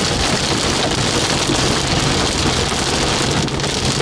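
Heavy rain hitting a car in a steady loud hiss, over a low, steady hum from the vehicle.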